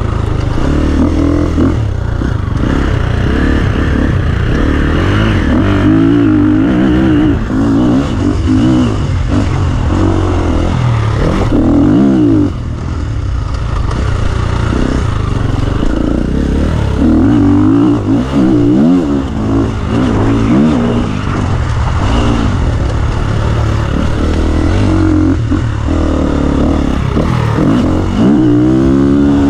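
2017 KTM 350 EXC-F single-cylinder four-stroke dirt bike with an Akrapovic exhaust, ridden hard. The engine revs up and down again and again as the throttle is opened and shut, with a sharp climb in pitch near the end.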